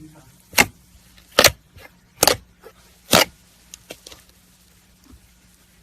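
Slime being handled, giving four sharp pops a little under a second apart, then a few faint small clicks.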